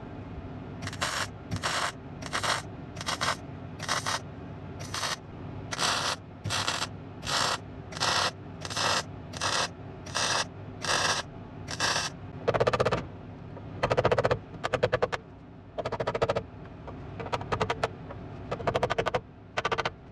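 MIG welder stitch-welding a new steel sill panel, with the arc struck in short bursts about one and a half times a second. About twelve seconds in, the bursts become fewer and longer, lasting a second or two each.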